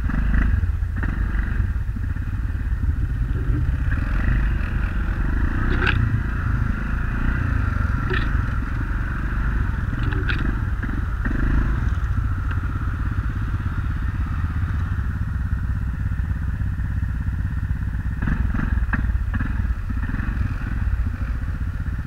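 ATV engine running steadily under way, heard close up from the rider's own machine, with a few sharp knocks and rattles scattered through it.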